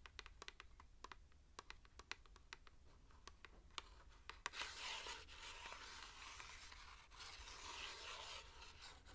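ASMR tapping and scratching on product packaging: a run of light, irregular taps for about four and a half seconds, then continuous scratchy rubbing and crinkling of the packaging.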